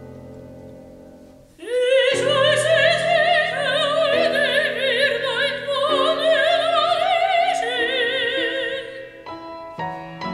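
A soprano singing an operatic aria with wide vibrato over piano accompaniment. A held piano chord fades away first. The voice enters about one and a half seconds in and sustains long high notes until about nine seconds, after which the piano plays on alone with struck chords.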